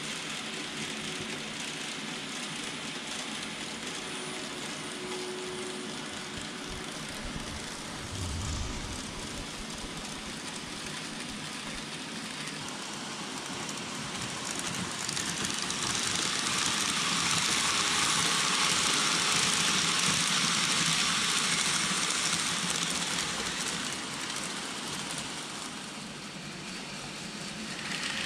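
KATO N-gauge 117 series model train running on the layout track: a steady rolling hiss of small wheels on rail. It grows louder past the middle, eases off, then rises again near the end.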